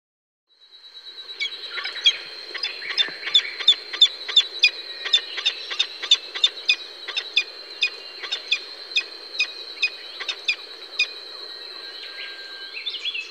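Peregrine falcon chittering: a rapid series of sharp, short calls, about three a second, that thins out near the end. A steady high tone runs underneath.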